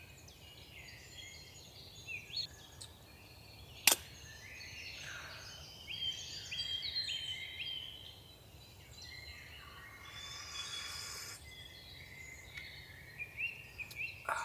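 Wild songbirds singing and calling, many short chirps and trills overlapping. A single sharp click about four seconds in is the loudest sound.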